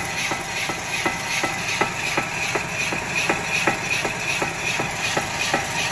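Right front wheel hub and brake rotor of a 2010 Chevy Malibu spinning under drive, with a steady grinding rush and a regular knock about three times a second. The owner traces the noise to a failing front wheel bearing.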